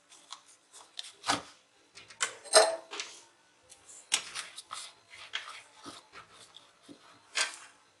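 Irregular knocks, clicks and rustles of tools and a small cardboard box of solder wire being picked up and set down on a wooden tabletop, the loudest knock about two and a half seconds in.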